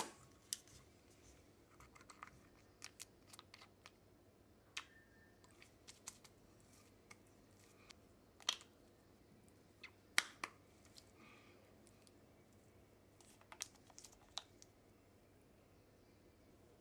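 Scattered light clicks and taps of small hard objects being handled, coming at irregular intervals, with two sharper clicks around the middle.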